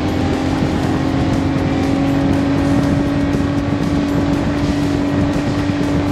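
Mercury F30 four-stroke 30 hp outboard running at speed with the throttle being opened: one steady engine tone that rises gently in pitch, over a constant rush of noise.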